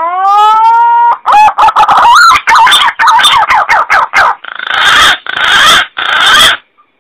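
Green pigeon (punai) calls used as a hunting lure. A long whistled note rises slightly, then a run of quick warbling whistles follows, and three harsh noisy notes end the call.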